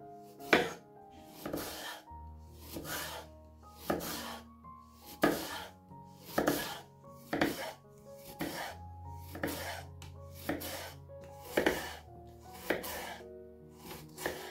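Knife cutting vegetables on a cutting board, one cut roughly every second, over soft background music.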